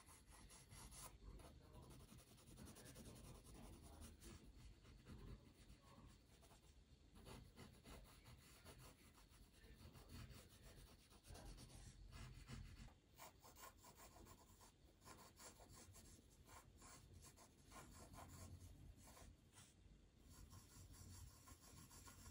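Pencil drawing on paper: faint, rapid, irregular scratching strokes as the pencil is worked back and forth.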